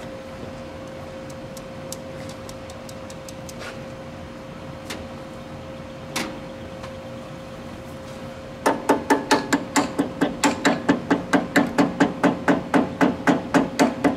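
Riding-mower starter solenoid chattering when the key is turned: a fast, even run of loud clicks, about four to five a second, starting about two thirds of the way in, with no engine cranking. The owner takes it for a bad solenoid.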